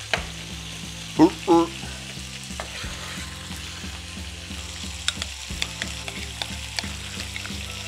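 Chicken sizzling in hot oil in a cast-iron pan: a steady hiss with scattered sharp crackles of spattering fat. A short hummed vocal sound about a second in.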